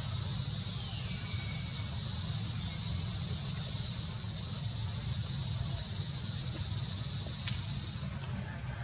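Steady high-pitched buzz of an insect chorus that cuts off suddenly near the end, over a low continuous rumble.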